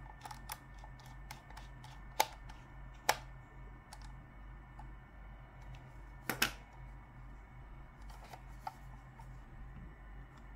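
Scattered small clicks and taps: faint ticks at first, then louder single clicks about two and three seconds in, and a quick double click a little past six seconds.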